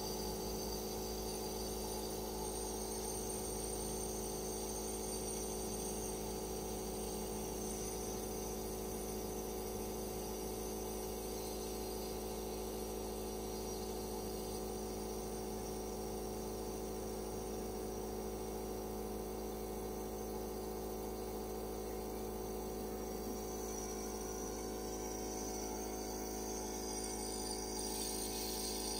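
Compressor nebulizer running with a steady, unchanging buzzing hum.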